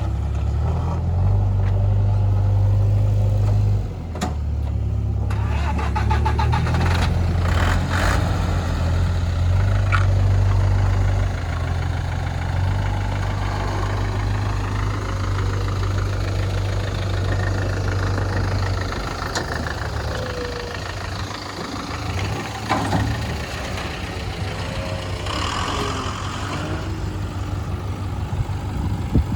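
JCB backhoe loader's diesel engine running steadily, swelling and easing in loudness as it works the soil, with a few short clanks now and then.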